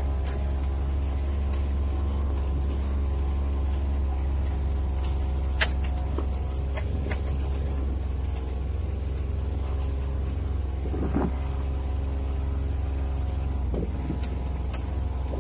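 A farm vehicle's engine running steadily while driving over a grass field, with a few sharp clicks and knocks scattered through it.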